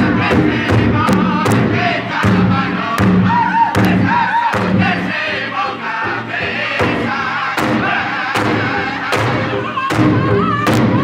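Powwow drum group: several men singing loudly together around one large powwow drum, all striking it in unison in a steady beat of about two to three strokes a second.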